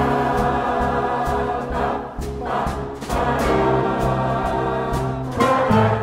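Jazz band playing: alto saxophone and trombone lines over piano, upright bass and drums.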